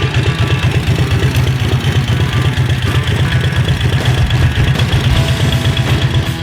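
Motorcycle engine idling with a rapid, uneven pulsing beat, cutting off abruptly at the end.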